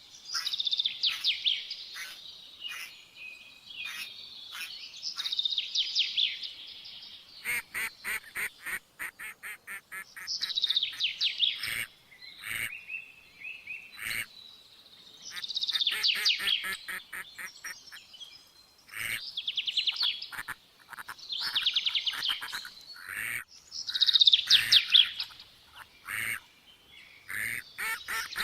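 Small birds singing, repeating a fast trilling phrase every two to three seconds. A quick run of sharp clicks comes in about a third of the way through.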